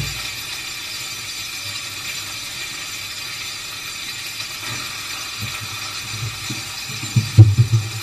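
Raw chicken pieces sizzling in a frying pan on a gas stove, a steady hiss. A few dull knocks come near the end.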